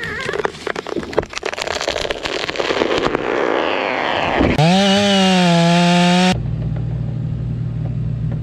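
Tree trunk cracking and splintering in a rapid run of sharp cracks as the felled tree tips over on its chainsaw-cut hinge. About halfway through, a chainsaw revs up and holds at high speed, then gives way abruptly to a steady low engine drone.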